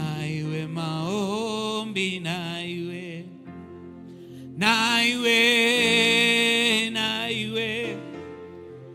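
Slow worship music: a voice sings long, held notes with wide vibrato over sustained accompaniment chords, swelling louder a little past halfway.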